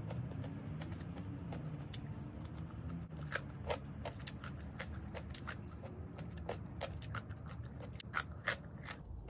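Close-up chewing and crunching of a mouthful of raw vegetables and herbs: a run of short, crisp crunches that grow louder from about three seconds in, over a low steady rumble.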